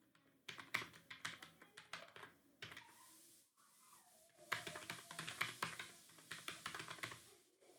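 Typing on a computer keyboard: rapid runs of key clicks, with a brief pause a little past halfway before a second, denser run.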